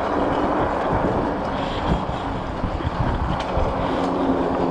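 Wind buffeting the microphone of a camera moving at riding speed on a bike, a steady rushing noise with low rumble.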